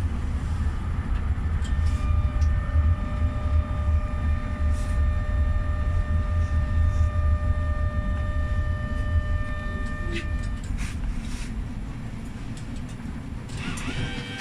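GEC-Alsthom TFS tram running along street track, heard from the driver's cab: a steady low rumble with a steady hum in several tones over it. The rumble eases off after about ten seconds as the tram slows.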